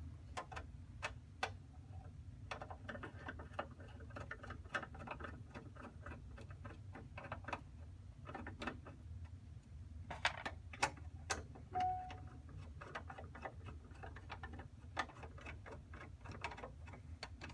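Phillips screwdriver turning screws out of a metal battery-cartridge cover: faint, irregular small clicks and ticks, with a short squeak about twelve seconds in, over a low steady hum.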